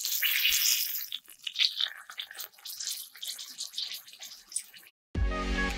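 A small piece of beef steak sizzling in hot oil in a miniature wok, a hiss that rises and falls and then cuts off suddenly. After a brief silence, gentle plucked guitar music starts near the end.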